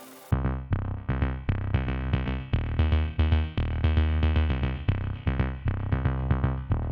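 Background electronic music with a steady synthesizer pulse, starting a moment in after a brief fade.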